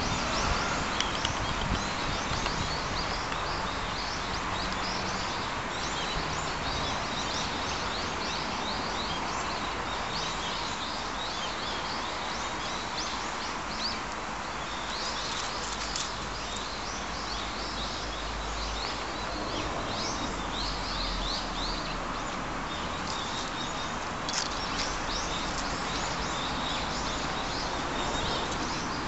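Outdoor ambience of small birds chirping over and over, high and short, against a steady background hiss.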